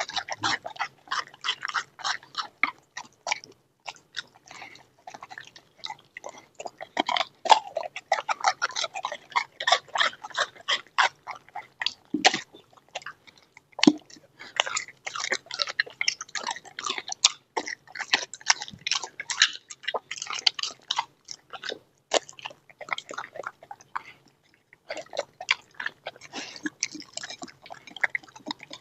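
Dog chewing raw quail with its bones, many quick, irregular crunches and cracks. There is a short pause a few seconds before the end.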